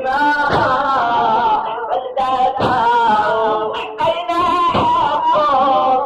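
Arabic religious chant: a voice or chorus holding a wavering, ornamented melody with no clear words, over heavy beats every second or two.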